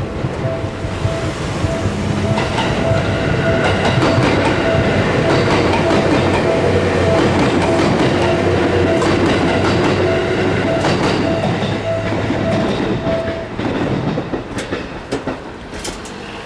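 Railroad crossing warning bell dinging in a steady rapid rhythm as a train passes over the crossing, its wheels clacking over the rail joints. The bell stops near the end while the train is still going by.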